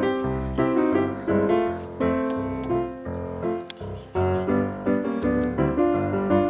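Background music: a light, bouncy solo piano tune in silent-film style, with a steady alternating bass-and-chord beat.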